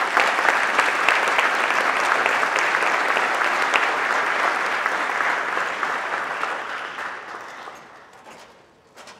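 Audience applauding, a dense steady clapping that dies away over the last couple of seconds.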